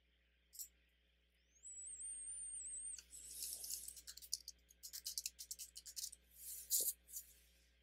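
A computer mouse click, then a faint wavering high whistle-like tone for about a second and a half, then a rapid, uneven run of keyboard key clicks as a word is typed.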